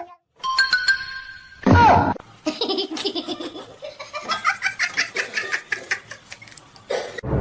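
Laughter in short, repeated bursts lasting several seconds, after a brief loud sound about two seconds in.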